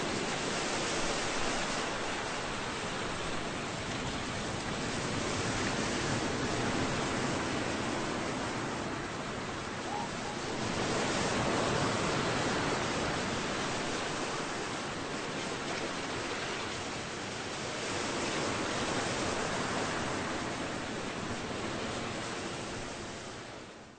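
Ocean waves on a rough sea: a steady rushing wash that swells and eases every few seconds, fading out near the end.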